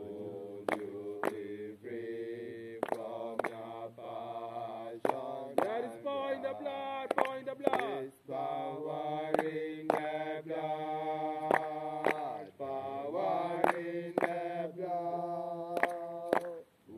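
Voices chanting together in a Bobo Shanti Sabbath chant, in long phrases of held notes with short breaks between them. Sharp beats keep time about twice a second.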